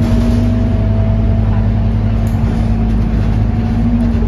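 Scania K230UB city bus's rear-mounted five-cylinder diesel engine and drivetrain running under way, heard from inside the passenger saloon: a loud, steady low rumble with a held tone that drops slightly in pitch near the end.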